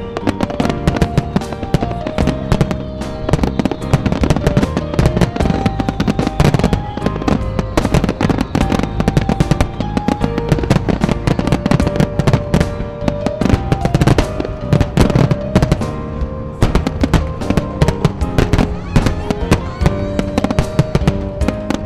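Aerial fireworks bursting in rapid succession, a dense run of sharp bangs and crackles, under background music that carries a melody of long held notes.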